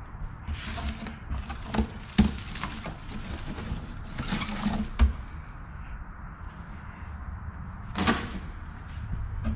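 Crinkled kraft-paper packing rustling and crackling as handfuls are pulled out of a cardboard box, in several bursts, with a dull knock about two seconds in and a louder one about five seconds in.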